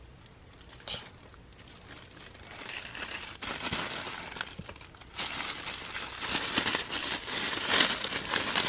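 Packaging being handled and opened, crinkling and rustling. A single click about a second in, then the crinkling starts softly and gets louder and busier over the last few seconds.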